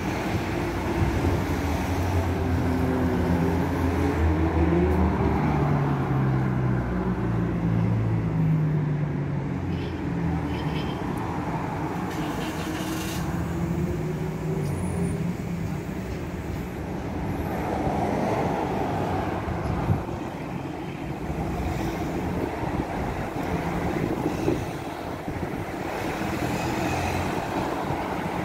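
Road traffic: cars and vans passing on the road below, with engine and tyre noise. In the first several seconds an engine's pitch rises and falls, and later passing vehicles swell and fade.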